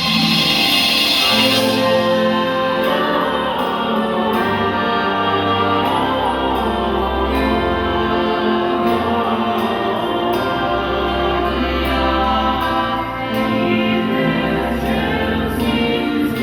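Christmas stage-show music: a choir singing over orchestral backing, in long held chords.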